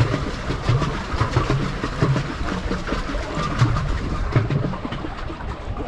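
Water splashing and lapping against the hull of a moving pedal boat close to the microphone, in short irregular slaps and low thuds.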